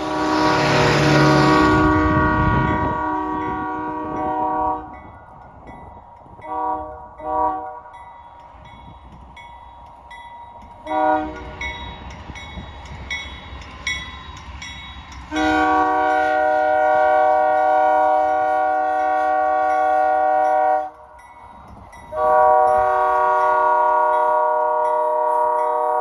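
Canadian National freight locomotive's multi-chime air horn sounding for a grade crossing. It gives one long blast, two quick short toots, a lone short toot, then two long blasts as the locomotive reaches the crossing. A rush of noise sits under the first blast.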